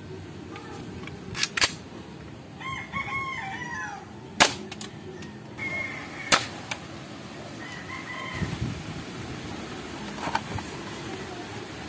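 Airsoft pistol firing BBs into a cardboard box lid: sharp single shots about a second and a half in (two close together), then about four and a half and six and a quarter seconds in. A rooster crows in the background about three seconds in, with shorter calls later.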